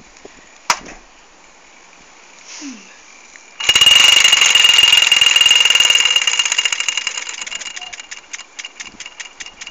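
Mamod Minor 1 toy steam engine's single oscillating cylinder suddenly bursting into fast running about four seconds in: a loud, rapid, even chatter of beats with a high steady tone. It then gradually slows and fades until the separate beats can be counted near the end.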